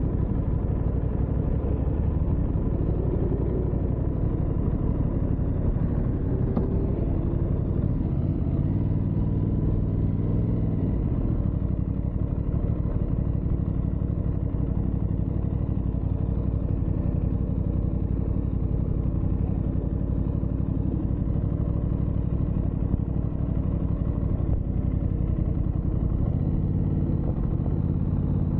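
Aprilia motorcycle engine running on the move, under a steady low rumble of wind and road noise. The engine note shifts up and down about a third of the way in and again near the end.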